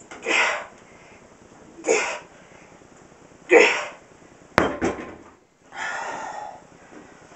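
A man breathing out forcefully with each rep of a one-arm dumbbell row, three hard exhalations about a second and a half apart. Then the plate-loaded dumbbell is set down on the floor with a sharp metal clank and a second knock, followed by a longer breath out.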